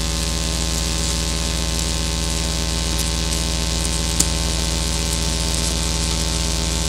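Live modular-synthesizer electronics playing a dense, steady drone: a strong low hum under many held tones with a layer of hiss, and a sharp click about four seconds in.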